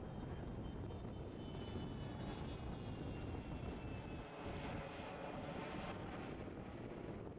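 Twin-engine business jet with rear-mounted turbofan engines passing overhead: steady jet engine noise, with a high turbine whine that falls in pitch as the aircraft goes by.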